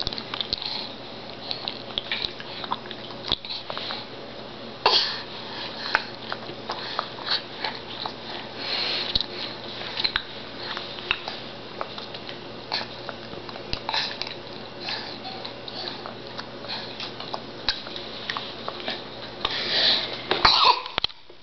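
A baby coughing and clearing his throat in short bursts every few seconds, the small coughs of a baby getting over a cold, loudest near the end. Between them come light taps and smacks of hands on the high chair tray, over a steady low hum.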